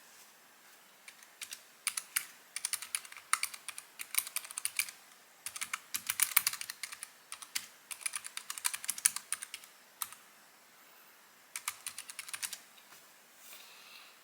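Typing on a Keychron K3 V2 low-profile mechanical keyboard: quick runs of crisp keystroke clicks with short pauses between them. A single click comes right at the start, and the typing stops about twelve and a half seconds in.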